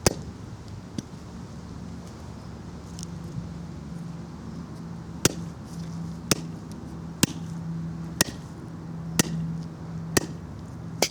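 Hammer blows pounding a spent lithium-polymer (lipo) battery: one at the start, then a run of about seven sharp strikes at a steady one per second from about five seconds in. A low steady hum runs underneath.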